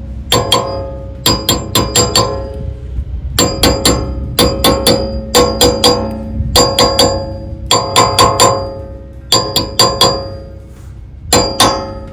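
A small sledgehammer tapping a metal hub dust cap down onto a wheel hub: sharp ringing metal clanks in quick clusters of two to four, about a second apart, seating the cap around its rim.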